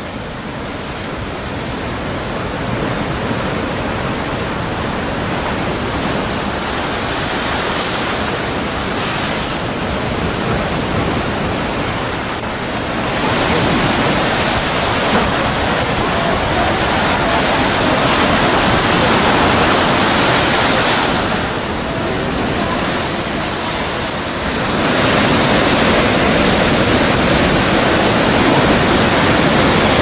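Strong wind blowing over a rough sea, a loud, even rush of wind and surf. It builds over the first few seconds and swells in gusts, with a brief lull about two-thirds of the way through before rising again.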